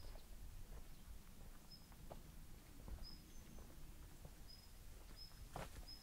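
A small bird repeating a short, high chirp about once a second, faint over quiet outdoor ambience, with soft footsteps and a sharper tap near the end.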